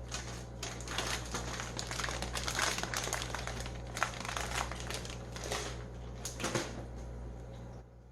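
Crinkling and rustling of packaging being handled and pulled open, with irregular crackles that stop near the end.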